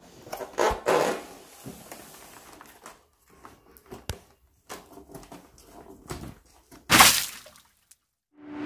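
A large cardboard box being handled and moved on a tabletop: scattered knocks, scrapes and rustles, with louder bumps about a second in and again near the end.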